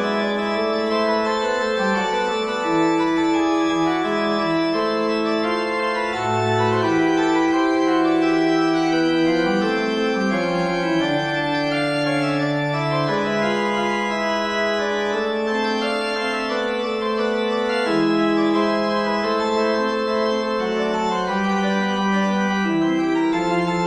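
Organ playing a chromatic fugue: several voices in held notes move over one another without a break.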